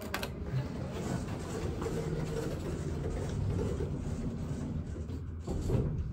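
Steady mechanical rumble inside a thyssenkrupp hydraulic elevator car as it readies to go up from the ground floor, with a sharp click at the start and a thump near the end.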